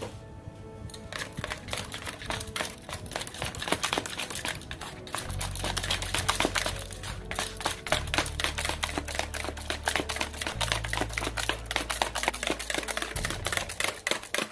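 Egg whites being beaten by hand in a bowl with a manual beater: a fast, continuous run of clicks as the beater strikes the bowl while the whites stiffen. Background music plays underneath.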